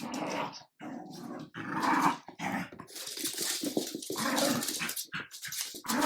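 A Jack Russell terrier and a French bulldog puppy play-fighting, with growling in several short bouts broken by brief gaps.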